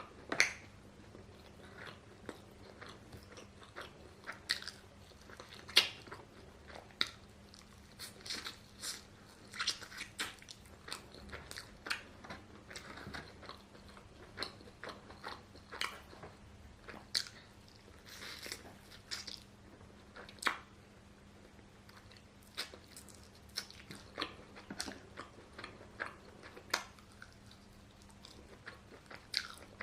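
A person biting and chewing food, with irregular crunches every second or so, while eating from a grilled-chicken sharing box.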